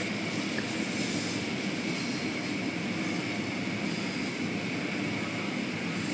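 Automatic car wash running: a steady rush of water spray and wash machinery, with cloth wash strips sweeping over the car, heard from inside the car. A faint steady high whine sits over it.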